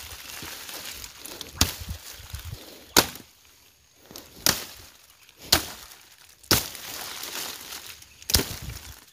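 A blade chopping dry branches on the ground: about six sharp chops spaced roughly a second or so apart, with faint rustling of brush between them.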